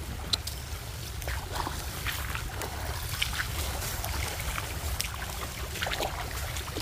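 Footsteps sloshing through water and wet undergrowth in light rain: scattered small splashes, drips and rustles over a low, steady rumble.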